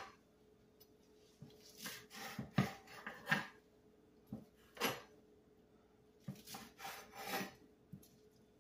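Chef's knife roughly chopping Swiss chard leaves on a plastic cutting board: short knife strokes through the leaves onto the board, coming in uneven runs of a few strokes with brief pauses.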